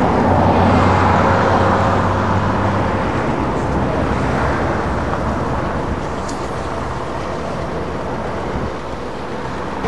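Large four-engine high-wing transport aircraft passing low on landing approach. The engine noise is loudest about a second in, then slowly fades as the plane descends away toward the runway.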